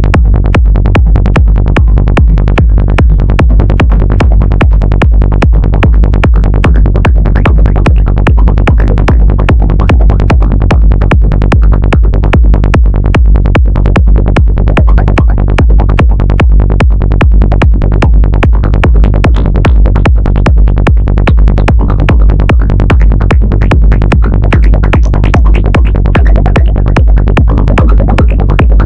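Dark psytrance played by a VCV Rack virtual modular synthesizer patch: a fast, even pulsing bass with sequenced synth tones running through filters.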